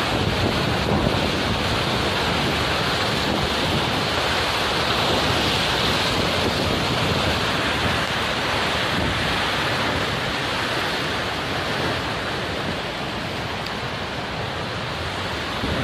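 Muddy flash-flood torrent rushing and churning over rocks: a loud, steady rush of water.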